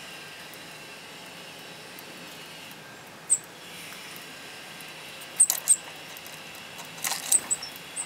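Small birds giving short, very high chirps, a few scattered and then several in quick clusters about halfway through and near the end, over a steady background hiss.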